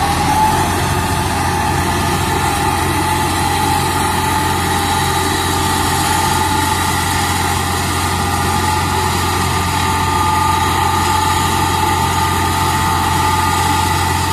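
Eicher 557 tractor's diesel engine running steadily under load while driving a PTO mulcher that shreds rice straw. A constant high whine sits over the engine's low drone.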